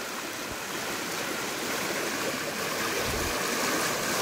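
Small irrigation channel running full and fast after heavy rain: a steady rush of flowing water.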